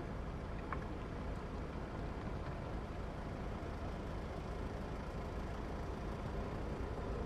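Steady low rumble with a hiss, unchanging throughout.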